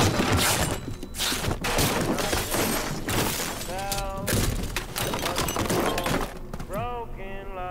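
Things being smashed and knocked over: a rapid, dense run of crashes, breaking and thuds, with a few short voiced cries in between.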